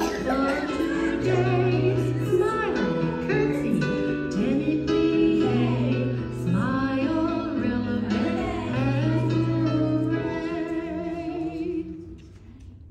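A song with female singing over sustained bass notes, played over a portable speaker; the music drops away about a second before the end.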